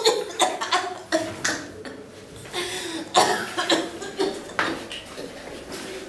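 A person coughing and clearing the throat in a run of short, irregular coughs.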